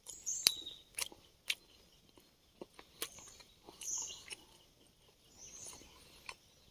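A person chewing and biting food, with scattered sharp crunching clicks.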